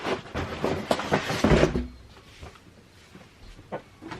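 Shoeboxes and packaging being handled: a busy rustle with irregular knocks for about two seconds, then only a few faint clicks.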